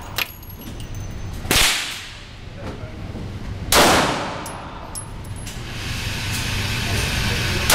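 Pistol shots at an indoor range, each a sharp crack with a short echoing tail: one about a second and a half in, a second about two seconds later, and a third at the very end.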